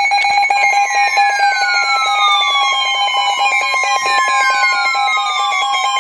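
Emergency alert attention tone: a loud, steady two-tone alarm with falling sweeps repeating over it every few seconds, announcing a new National Weather Service warning.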